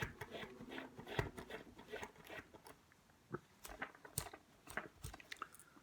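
Irregular small clicks, ticks and scratching of tiny model-locomotive parts being handled and scraped clean of grease and grime.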